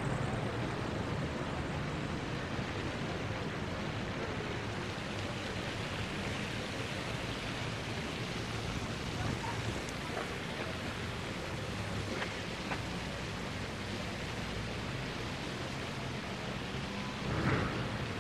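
City street ambience: a steady wash of traffic noise with a low engine hum underneath, a few faint ticks, and a short louder rush near the end.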